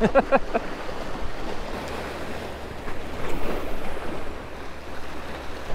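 Choppy sea waves washing against jetty rocks, with wind buffeting the microphone: a steady rushing noise.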